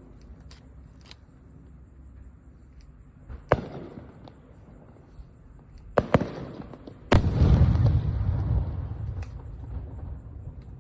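Aerial fireworks going off: fainter pops in the first second, a sharp bang about three and a half seconds in, a double bang near six seconds, then the loudest bang at about seven seconds trailing into a long rumbling crackle that fades over a couple of seconds.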